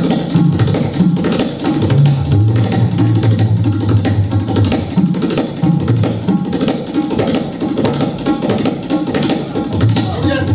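Tabla played in a fast, unbroken stream of strokes imitating a running train, with the bass drum's deep tone held and shifting in pitch under the rapid treble strokes.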